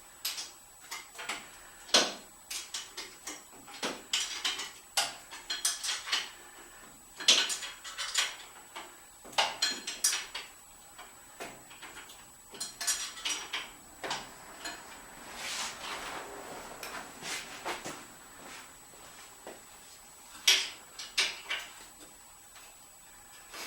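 Metal hand tools and engine parts clinking and clanking as they are handled, in irregular sharp knocks and clicks, with a brief stretch of scraping about two-thirds of the way through.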